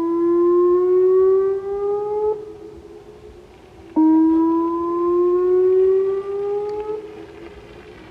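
Whelen 2906 electronic outdoor warning siren sounding a test signal. Each pitched tone starts abruptly, climbs slowly in pitch for about three seconds and cuts off, and it repeats twice, about four and a half seconds apart.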